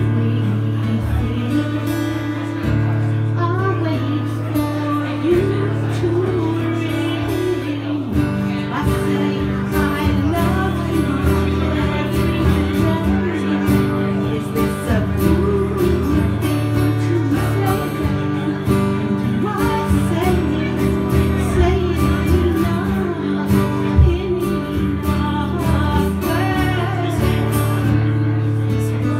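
A woman singing with a man playing acoustic guitar: a live voice-and-guitar duet, the guitar chords changing every few seconds under the melody.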